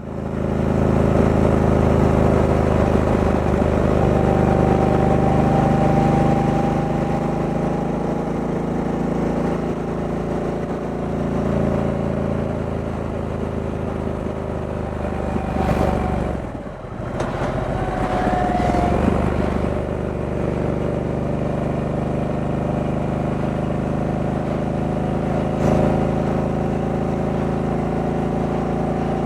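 Stock 2023 Harley-Davidson Sportster S's V-twin engine running steadily on the move. Around two-thirds of the way through, the engine sound briefly drops away, then picks back up with a rise in pitch.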